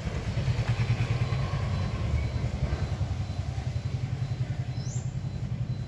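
Motorcycle engine idling, a steady low rumble with a fast even pulse. A brief high rising chirp comes about five seconds in.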